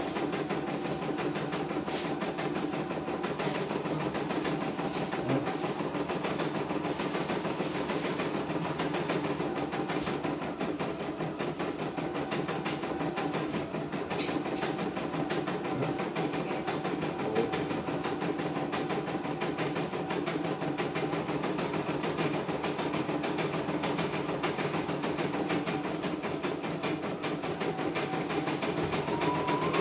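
CNY computerized embroidery machine stitching a design: a fast, steady run of needle strokes while the embroidery arm steps the hoop around.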